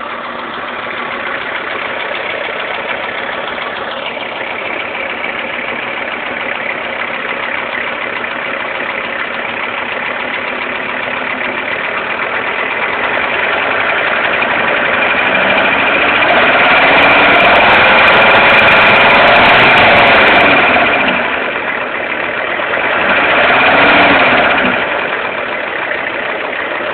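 Engine running with a knock, revved up slowly to a held higher speed around the middle and then let drop, with a second short rev near the end.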